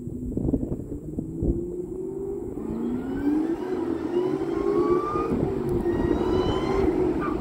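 Supercharged 4.6-litre V8 of a 2003 Mustang SVT Cobra, breathing through long-tube headers, an X-pipe and a Bassani cat-back exhaust, revving up under throttle, its pitch climbing for a few seconds, then holding high and easing off near the end.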